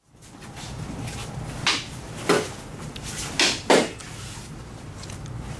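Eskrima sticks striking during full-contact stick sparring: four sharp knocks, the last two close together, over a low steady room hum.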